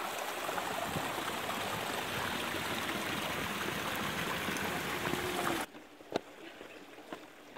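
Small stream of water running and splashing down a narrow stone channel beside stone steps, heard close up. It cuts off abruptly a little before six seconds in, leaving quieter outdoor sound with a single tap.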